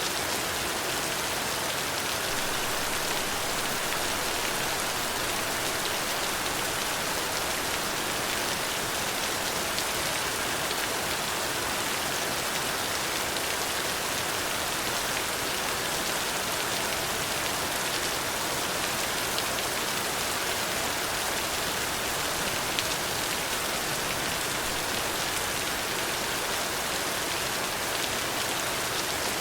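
Steady rain falling and pattering on a surface, an even hiss with occasional distinct drop ticks.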